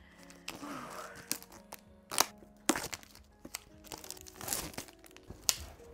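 Thin plastic shrink-wrap being torn and crinkled off a new book: a string of sharp crackles and short rustles, over soft background music.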